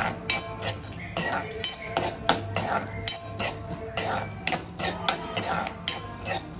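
Metal spoon knocking and scraping against a steel kadai in irregular clinks, a few a second, while cashews, raisins and almonds are stirred and fried.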